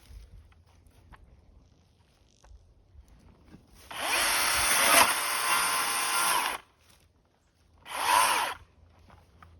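Chainsaw run in two bursts: one of nearly three seconds, then a short one about a second later. Each spins up quickly and stops abruptly.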